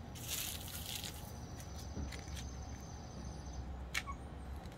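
Tape crinkling and rustling as it is wrapped around a popsicle stick to hold a puppy's ear upright, with one sharp tick about four seconds in.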